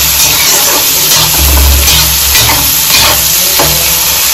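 Sliced onions sizzling and hissing in hot oil in a kadhai, with a steel spatula scraping and turning them several times.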